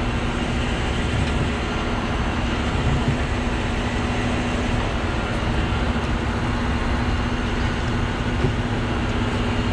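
Rotator tow truck's diesel engine running steadily with its hydraulic winch working, a constant hum setting in as the blue winch line is reeled in to lift the overturned truck.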